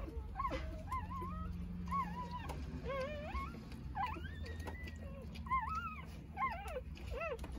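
Three-day-old Jindo puppies squeaking and whimpering, several at once: a run of short, high cries that rise and fall in pitch, one after another.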